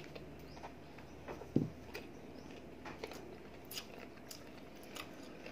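A person chewing a mouthful of raw cucumber close to the microphone: faint, irregular crunchy clicks, with one dull knock about one and a half seconds in.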